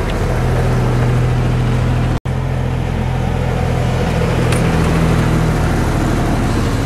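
Small diesel engine of a miniature railway locomotive running steadily with a low drone, with a brief break about two seconds in.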